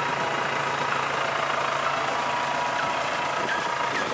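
Farm tractor's diesel engine idling steadily.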